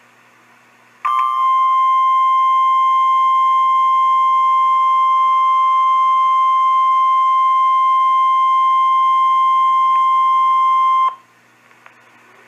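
NOAA Weather Radio 1050 Hz warning alarm tone, one steady pure tone held for about ten seconds and cutting off suddenly. It signals that a tornado warning broadcast follows.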